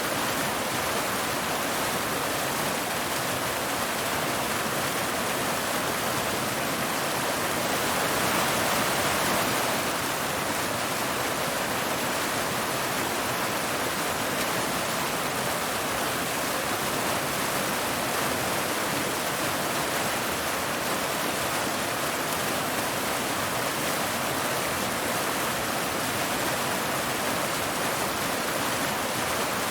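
Waterfall: water cascading over rocks in a steady rush, swelling slightly about eight seconds in.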